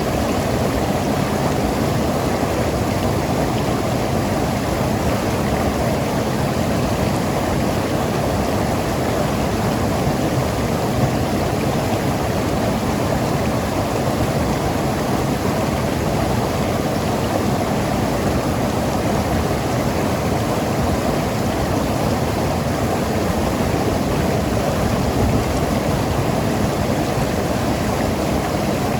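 Mountain river rushing and gurgling over rocks, a steady, even wash of water noise with most of its weight low and no breaks.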